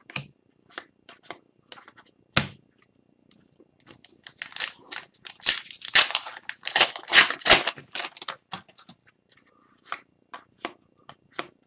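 Wrapper of an Upper Deck hockey card pack being torn open and crinkled, a dense crackling run from about four to eight seconds in. Before and after it come scattered light clicks and taps of trading cards being handled and shuffled.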